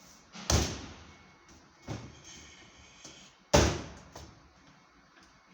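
Hard knocks of parts being handled: two loud thumps about three seconds apart, with a lighter knock between them.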